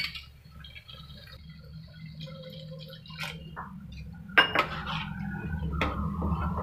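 A metal spoon clinking against a non-stick pan and stirring a thin, watery curry gravy, with liquid sloshing. A sharp knock of the spoon on the pan comes about four seconds in. A low, steady hum runs underneath.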